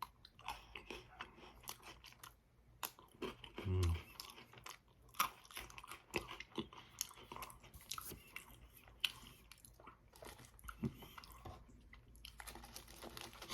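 Close-up chewing and crunching of chocolate-covered Pocky biscuit sticks, two eaten at once, with many small crisp crackles as the biscuit breaks up.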